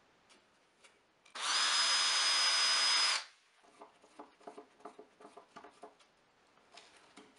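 Cordless drill driving a screw up into a plywood fence. It runs steadily for about two seconds with a high motor whine, then stops, and light scattered clicks and taps follow.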